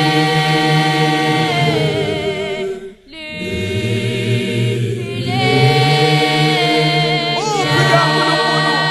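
A Zion church choir singing a cappella in harmony, holding long chords. The singing stops briefly about three seconds in, then resumes.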